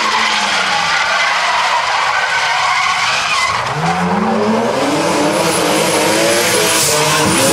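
Two drift cars sliding side by side: tyres squealing and skidding under wheelspin, over the engines revving. The engine pitch sags, then climbs sharply about three and a half seconds in and stays high on the throttle.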